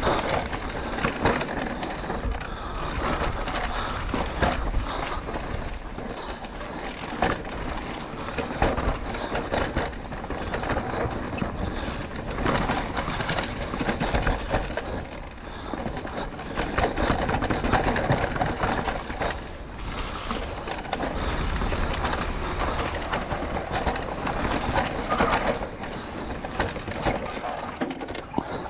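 Mountain bike riding down a rough dirt trail: tyres rolling over dirt and rocks, with the bike rattling and clattering over the bumps in an unsteady, rising and falling rush of noise.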